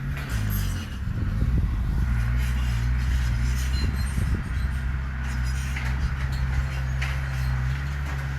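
Heavy diesel engine of earthmoving machinery running steadily under load, with a few short knocks and rattles in the first second and again about four seconds in.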